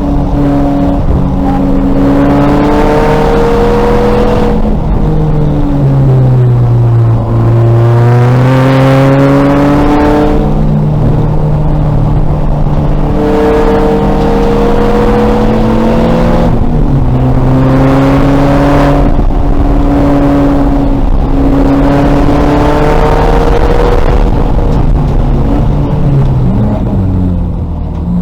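Race car's engine under hard acceleration, its revs climbing through the gears and dropping at each shift, with deeper falls when it lifts and brakes for corners.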